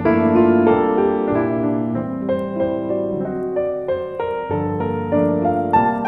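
Background piano music: a melody over chords, played at a steady moderate pace.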